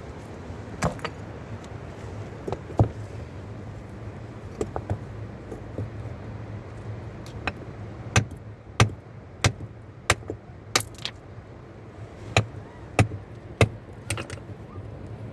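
A series of sharp knocks and clicks of hard objects striking one another, sparse at first and coming about every half second in the second half, over a steady low rushing background.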